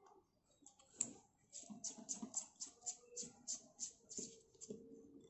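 Faint run of small, quick clicks, about four a second, as the battery cap is screwed back onto a clip-on lavalier microphone's power module, with a sharper single click about a second in.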